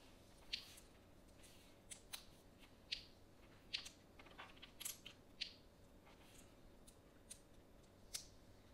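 Small LEGO pieces being handled and pressed together by hand: faint, sharp plastic clicks, about a dozen, scattered irregularly.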